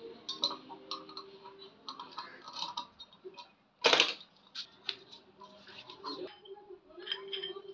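Light clicks and metal taps as a hole saw is taken off a drill chuck and handled, with one sharp knock about four seconds in.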